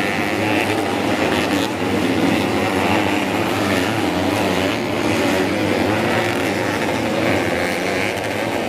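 Modified underbone motorcycles racing on a dirt track: several engines running hard at once, their wavering pitches overlapping in a continuous loud drone.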